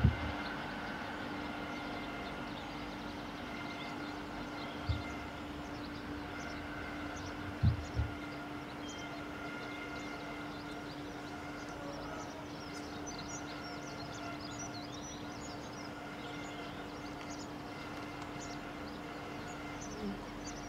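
Class 185 diesel multiple units' Cummins QSK19 engines giving a steady, even drone as the trains run past and approach. A few dull low thumps come at the start and about five and eight seconds in.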